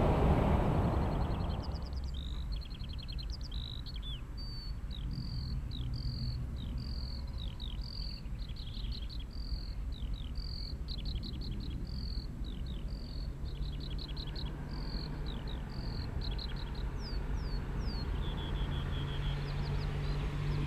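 A passing steam train fades away in the first couple of seconds. Then a songbird sings a long, varied song of repeated notes and quick trills. Under it a low rumble from an approaching steam locomotive builds toward the end.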